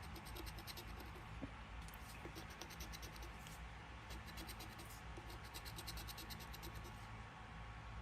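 Faint scratching of a lottery scratch-off ticket's coating, in runs of quick back-and-forth strokes with short pauses between them.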